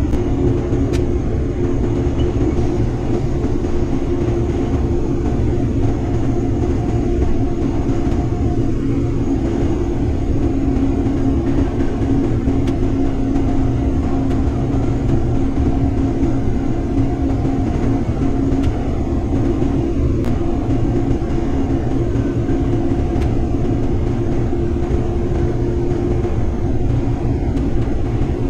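Steady drone inside the cab of a Case IH 2588 combine harvesting soybeans: engine and threshing machinery running under load, with a couple of held tones over a deep rumble. The unloading auger is running, emptying beans into a grain cart alongside.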